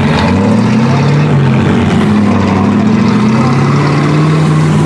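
Engine of a big home-built off-road vehicle on huge tyres running under load, its note rising and falling, as it drives into shallow water, with water splashing from the tyres.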